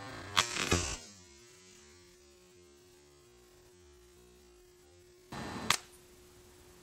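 Two shots from a Marksman 2004 air pistol about five seconds apart, each a sudden sharp report. The second pellet punctures the water-filled plastic bottle target. A faint steady hum runs between the shots.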